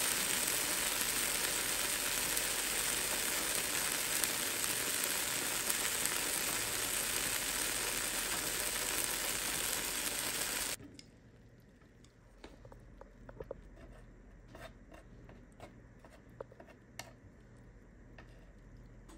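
Peeled eggplant halves sizzling on an electric hot plate: a steady, even sizzle that cuts off suddenly about two-thirds of the way through, leaving a quieter background with scattered small crackles.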